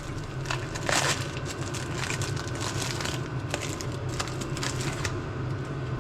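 Small hand file scraping rust and scale out of the brake caliper bracket's pad guides in irregular strokes, over a steady low hum.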